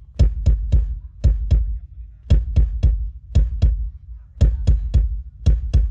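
Amplified drums playing a repeating beat of three hits then two, each hit deep with a sharp crack on top, with no other instrument standing out.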